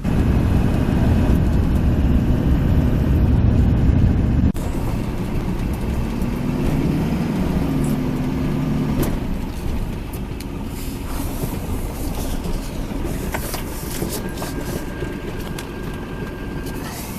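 Motor vehicle driving: a loud, steady engine and road rumble. It drops suddenly about four and a half seconds in, and the engine pitch rises and falls for a few seconds soon after.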